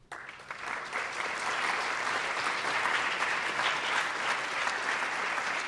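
Audience applauding: the clapping starts suddenly, builds over the first second, then holds steady.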